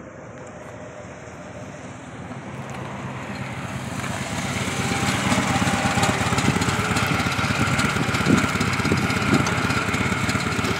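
Harley-Davidson motorcycle's V-twin engine getting louder over about five seconds as it comes closer, then running steadily close by at low revs.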